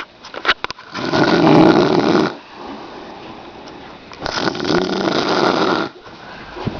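An elderly woman snoring in her sleep: two long, loud snores about three seconds apart, each lasting well over a second.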